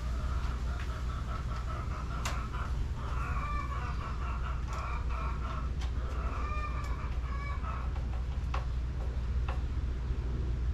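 Chickens clucking in short repeated calls over a steady low hum, with a few sharp clicks as wires are fitted into a solar charge controller's terminals. The clucking dies away after about seven seconds.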